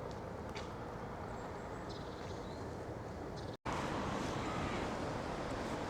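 Faint outdoor street ambience: a steady low rumble of wind and distant traffic. It cuts out for a moment about three and a half seconds in, then comes back slightly louder.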